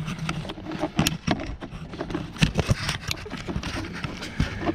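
Irregular clicks, knocks and scrapes of a small flathead screwdriver and hands working a plastic locking tab and wiring connector under a car's steering column.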